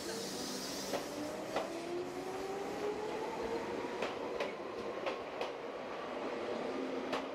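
Chichibu Railway electric train pulling out of the station, its motor whine rising steadily in pitch as it accelerates past. Several sharp wheel clicks over the rail joints are heard along the way.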